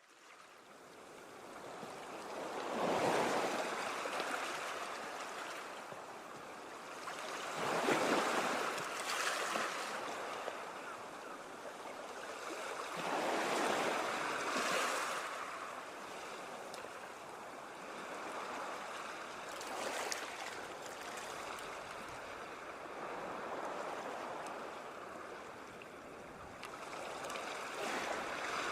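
Sea waves breaking and washing, fading in at the start, with a surge of surf about every five to six seconds over a steady rush between them.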